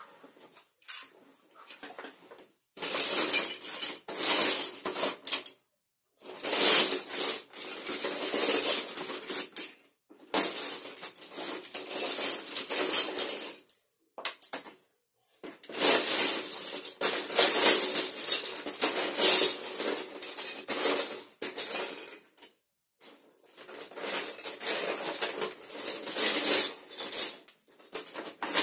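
Hands rummaging through a pile of loose plastic Lego bricks, the pieces clattering and rattling in about five long bouts with short pauses between, in a search for particular pieces.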